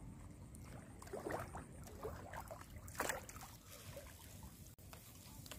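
A hooked pangas catfish thrashing and splashing in shallow water at the river's edge, in several irregular splashes, the sharpest about three seconds in as it is pulled up out of the water on the line.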